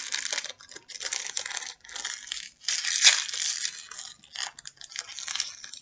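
Small blind-box packaging crinkling and tearing in irregular bursts as it is opened by hand.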